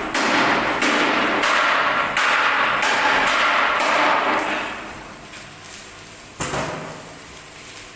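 Sheet-steel concrete-mixer drum clanking and scraping against its steel frame as it is manhandled into place; the loud clatter dies down after about four and a half seconds, and a single knock comes about six and a half seconds in.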